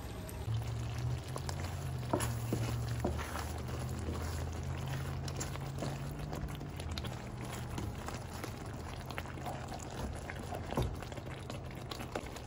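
Akabare chillies in lemon juice and spices simmering and bubbling in a nonstick frying pan as a wooden spoon stirs them, with a few light knocks of the spoon against the pan. A low hum runs under it for the first half.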